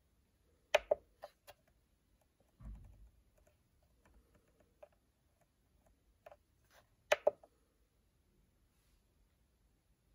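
Keys being pressed on the SMC4-4-16A16B CNC motion controller's keypad, each a sharp click. Two loud double clicks come about a second in and about seven seconds in, with fainter clicks between them and a dull thump near three seconds.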